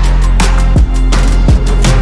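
Loud electronic soundtrack music with a heavy bass and a regular, hard-hitting drum beat.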